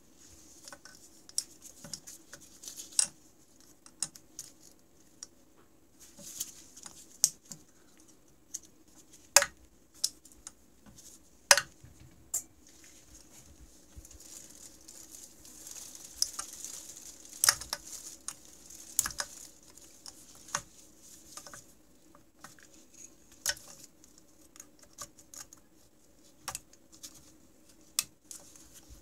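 Irregular sharp metal clicks and taps of a small screwdriver and gloved hands working at a snowmobile engine's piston and connecting rod while the piston is removed, mixed with rustling handling noise. A faint steady hum runs underneath.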